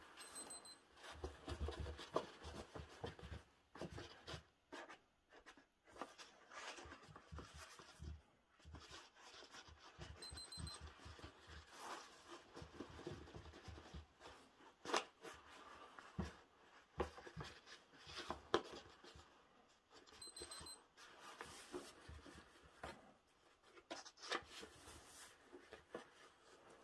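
Faint scratching and rustling of paper and carpet as kittens paw and nose at a paperback book, with scattered soft taps. A brief high electronic beep of a few quick pips sounds three times, about ten seconds apart.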